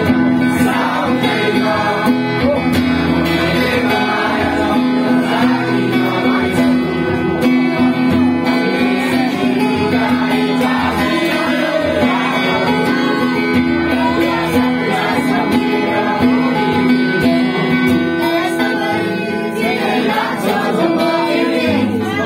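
Cutaway acoustic guitar played fingerstyle, with steady ringing notes, while voices sing along over it.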